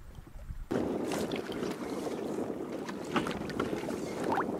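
Water lapping and splashing against an inflatable boat. It starts suddenly a little under a second in and then goes on as a steady wash with small scattered splashes.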